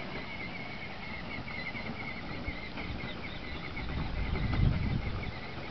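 Birds chirping in quick, repeated short notes, with a low rumble that swells about four seconds in.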